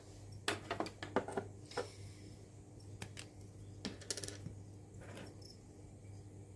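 Light, scattered clicks and taps of small plastic containers and lids being handled: a few in the first two seconds and a quick cluster about four seconds in.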